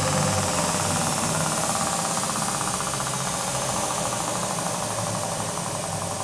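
Allrounder skate-sharpening machine running, its grinding wheel giving a steady hiss with a fast, even pulsing. Its steady tones fade about half a second in, and the sound then slowly grows quieter.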